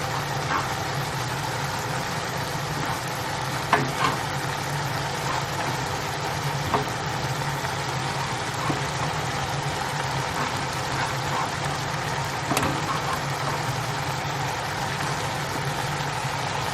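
Onion and other chopped ingredients frying in oil in a pan, a steady sizzle with a few sharp clicks of a utensil against the pan, over a constant low hum.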